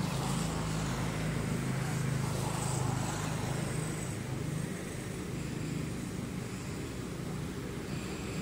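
A steady low engine hum, like a motor vehicle running.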